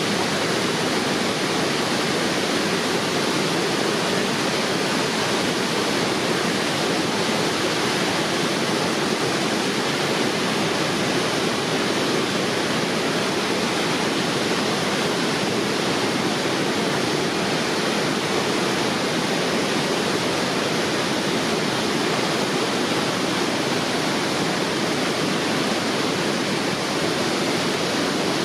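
Waterfall on a river, water pouring and splashing in a steady, unbroken rush.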